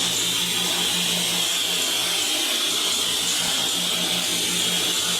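Electric power tool running steadily, a constant high motor whine that holds level without rising or falling.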